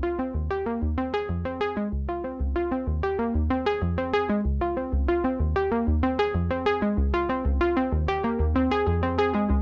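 Background music: an electronic track of quick, evenly repeating synthesizer or keyboard notes over a steady bass pulse.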